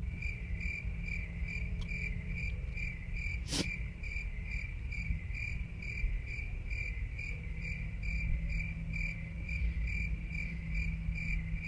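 Cricket chirping in an even, unbroken series of chirps, the stock sound effect for an awkward silence after a joke falls flat. A single sharp click about three and a half seconds in.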